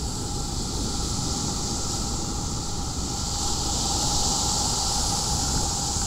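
Small ocean waves breaking and washing up a sandy, pebbly shore: a steady surf hiss over a low rumble, swelling slightly about four seconds in.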